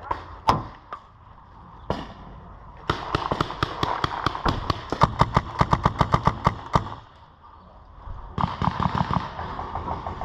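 Paintball markers firing. A few single shots come in the first two seconds, then a rapid string of shots at about eight a second for some four seconds, and another fast burst near the end.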